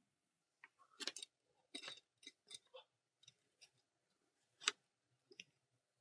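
Near silence with a scatter of faint small clicks and ticks from fingers handling a resistor lead and a thin wire, twisting them together, with the sharpest click a little before the end.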